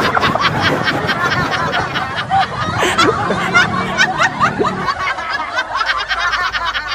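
Young women laughing hard together, a quick run of repeated laughs that eases off toward the end.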